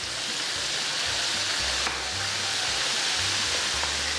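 Crab pieces deep-frying in hot oil in a wok: a steady sizzling hiss. Background music's bass notes run underneath.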